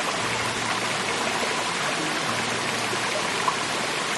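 Steady rushing hiss of water.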